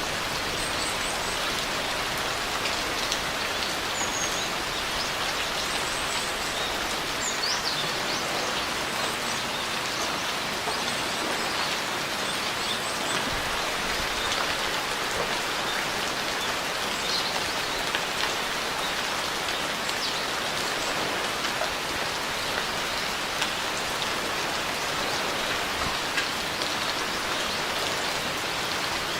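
Steady rain falling: an even hiss of many drops, with no thunder. A few faint high chirps sound in the first half.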